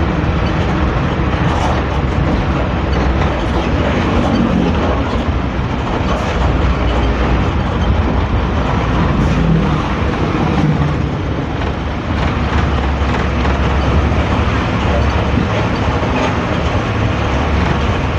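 Hino AK3-HR bus diesel engine and exhaust heard from the rear of the cabin while under way: a steady low drone with road noise and cabin rattle, the growly 'ngorok' exhaust note of this bus.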